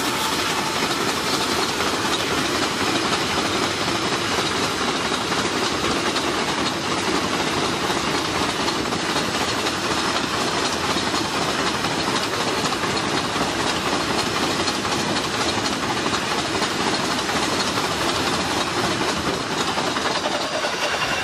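Janta Express passenger train running at speed, heard from an open coach door: a steady rush of wheel-on-rail noise and wind alongside a long line of goods wagons on the next track.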